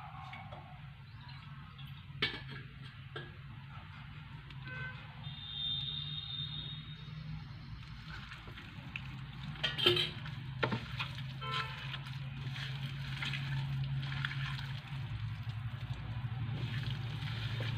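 A bare hand kneading chicken pieces in a wet, oily spice-and-flour coating in a plate, making soft squelching sounds, with a few sharper knocks about two seconds in and around ten seconds. A steady low hum sits underneath.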